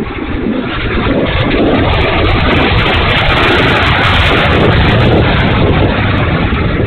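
Twin 64 mm electric ducted fans of an E-flite A-10 Thunderbolt II model jet spooling up over about a second, then running loud and steady with a rough, noisy sound that the owner takes for a bad motor.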